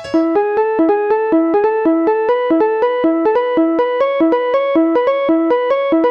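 MIDI ringtone melody made for the Nokia 1208: a fast, even run of short synthesized keyboard notes, about five a second, in a repeating arpeggio pattern over a recurring lower note.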